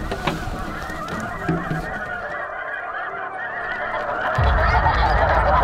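A large flock of snow geese calling, many high yelping honks overlapping into one continuous chatter that grows louder near the end. A low rumble joins in near the end.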